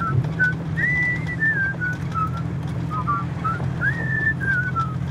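Two men whistling a tune in unison, in short phrases that each start high and step down in pitch, over the steady low drone of a car heard from inside the cabin.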